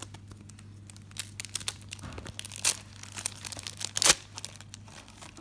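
Foil Pokémon booster pack wrapper crinkling and being torn open, a run of crackles with two sharper rips, one near the middle and one about four seconds in.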